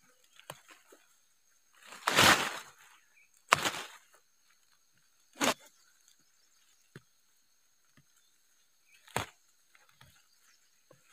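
Leafy plant stems being snapped off by hand and the gathered leaves rustling: one longer rustle followed by three separate sharp snaps a few seconds apart.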